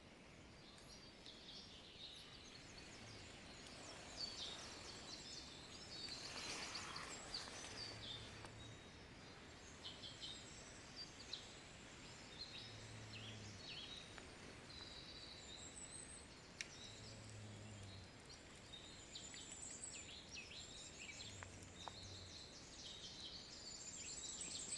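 Faint forest bird chorus: many small birds chirping and trilling in short high notes over a steady background hiss. A short, low hum comes and goes about four times.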